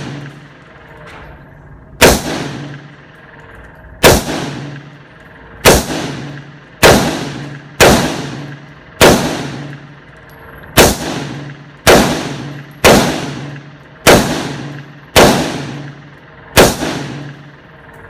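Twelve gunshots from a single firearm in slow, steady fire, about one shot a second with slightly uneven gaps, each shot followed by a short echo.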